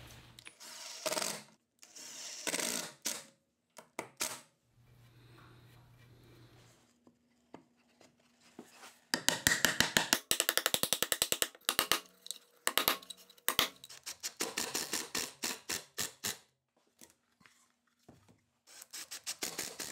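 Cordless impact driver driving screws in short bursts of rapid hammering. Separate knocks of wooden parts being handled are heard in the first few seconds.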